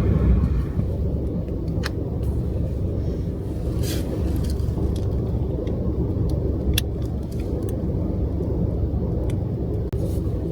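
Steady low rumble of a kei van driving, heard from inside the cabin, with a few faint light clicks.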